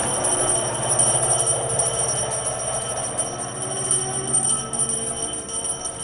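Noise-art sound installation: a loud, continuous, dense wash of noise with several steady held tones and a jingling, bell-like layer.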